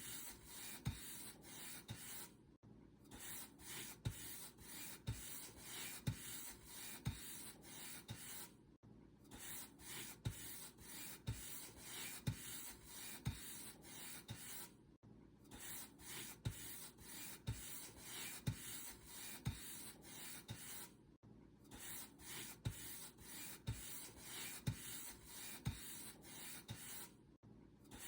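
Paint brush stroking back and forth over a surface: a steady bristly swish with soft taps at a regular rhythm, breaking off briefly about every six seconds.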